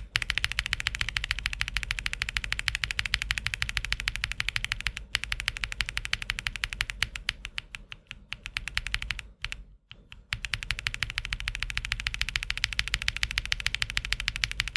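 Fast typing on a mechanical keyboard fitted with Gateron EF Grayfish heavy tactile switches (polycarbonate top, nylon bottom housing): a dense run of clacky keystrokes. It pauses briefly about five seconds in, and again around eight and ten seconds in.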